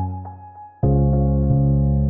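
Background music of soft keyboard chords. A chord rings and fades, and a new chord is struck just under a second in and held.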